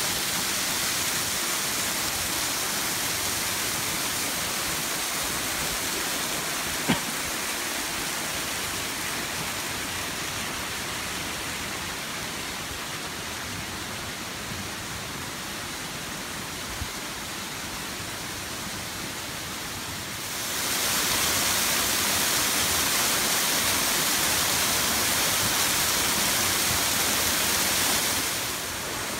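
Steady rushing and splashing of a mountain waterfall pouring down a rock face, growing louder about two-thirds of the way in and easing near the end. A single sharp click about seven seconds in.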